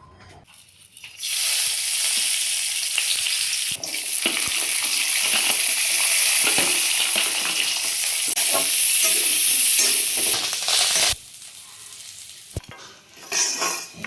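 Green chillies, garlic and peanuts frying in hot oil in a kadhai for thecha: a loud, steady sizzle with stirring clicks through it. The sizzle starts about a second in and cuts off abruptly about eleven seconds in, leaving quieter clatter.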